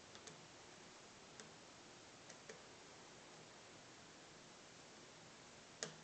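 A few faint, sharp clicks and taps of small plastic laptop parts being handled and fitted during reassembly, the loudest near the end, over a quiet hiss.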